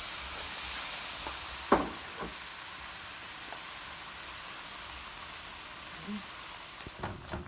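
Ground beef with chopped onion, bell pepper and celery sizzling in a pan, a steady hiss. A utensil knocks against the pan once, sharply, about two seconds in, and a few times near the end.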